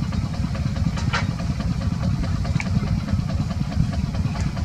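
An engine idling steadily as a low rumble, with one short high squeak about a second in.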